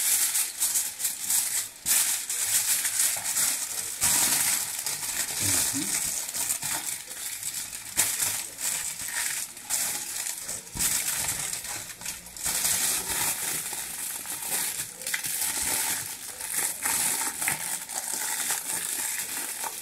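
Aluminium foil crinkling and crumpling over and over as it is pulled off the roll and folded and pressed tightly around a whole fish.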